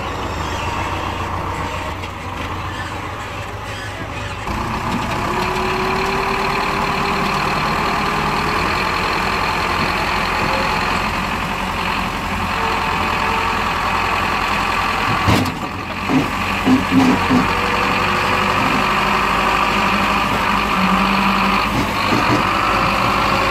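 Diesel engine of a tractor with a front-end loader running steadily under load as the loader digs and lifts earth, picking up in speed about four seconds in. Partway through comes a sharp knock, followed by a few short thumps.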